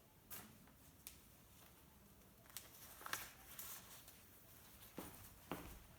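Near silence: room tone, broken by a few faint, short clicks and rustles at uneven intervals.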